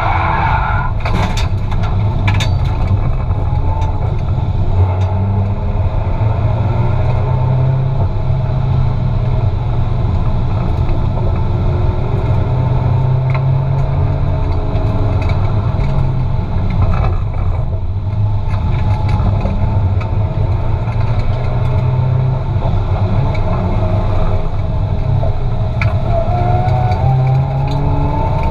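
Turbocharged Toyota 2JZ inline-six in a Nissan Silvia S15 running steadily, heard from inside the cabin, with a few brief knocks. Near the end the engine revs climb.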